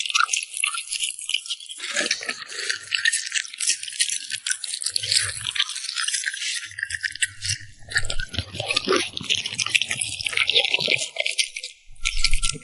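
French bulldog eating, with rapid, crisp crunching and crackling bites and a few soft low thuds.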